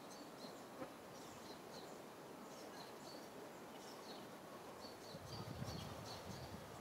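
Faint outdoor ambience: a steady hiss with short, high chirps repeating every fraction of a second, joined by a low rumble in the last couple of seconds.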